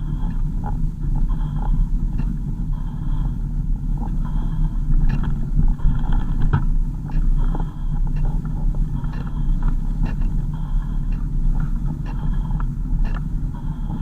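Car driving, heard from inside the cabin: a steady low engine and road rumble with frequent small rattles and knocks over it.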